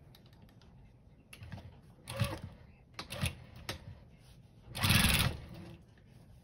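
Home sewing machine stitching through several thick layers of denim in short spurts: a few scattered clicks, then a brief fast run of stitches about five seconds in.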